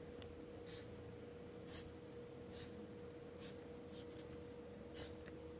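A pen drawing lines on a paper strip on a tabletop: about seven short, faint scratching strokes, under a faint steady hum.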